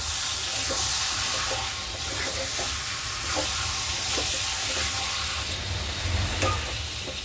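Liver and gizzard pieces in masala sizzling in a pan on the gas stove while a spatula stirs them, a steady frying hiss with repeated soft scraping strokes.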